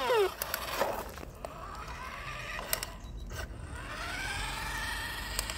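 New Bright Hot Pursuit RC police car's small electric drive motor whining as the car drives on concrete. The whine rises in pitch about four seconds in and then holds steady, with a few light clicks along the way. The toy's electronic siren, a repeating falling wail, cuts off right at the start.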